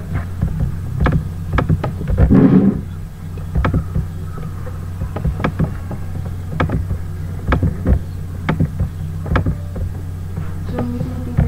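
Steady low hum with sharp mouse clicks at irregular intervals, about one a second, as menu options are clicked on a computer. A short, louder noise comes about two seconds in.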